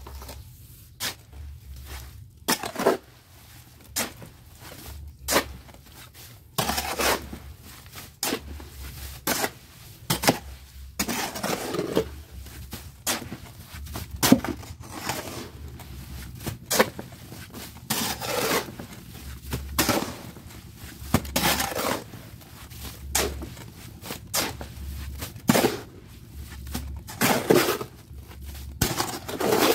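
A hoe chopping and scraping through damp sand-and-cement mix in a steel wheelbarrow, the blade grating on the metal pan with each stroke, about one stroke a second at an uneven pace.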